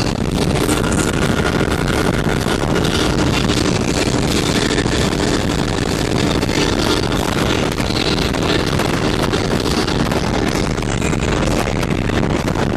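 Speedboat engine running steadily at speed, heard from aboard, with rushing water and wind buffeting the microphone.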